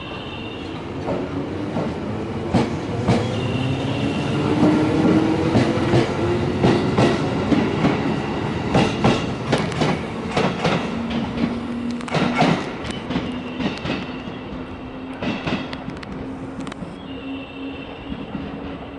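JR West 213 series electric train pulling away and accelerating, its motor hum rising in pitch over the first several seconds. The wheels clack over rail joints and points, most densely around the middle, with brief high-pitched squeals now and then, and the sound slowly fades as the train draws away.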